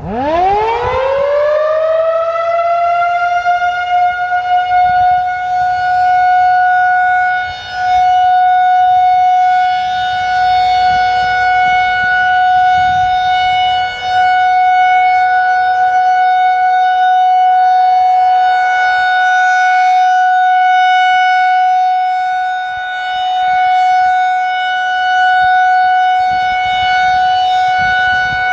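Federal Signal 2001-SRNB electromechanical tornado siren sounding its steady alert tone for a monthly test. It winds up in pitch over the first couple of seconds, then holds one loud steady tone whose loudness swells and dips a few times.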